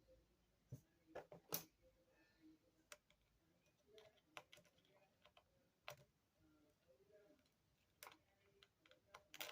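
Sparse, faint clicks and taps of a small precision screwdriver and tiny screws against an iPhone's metal frame, at irregular moments, with a sharper pair of clicks about one and a half seconds in and a cluster near the end.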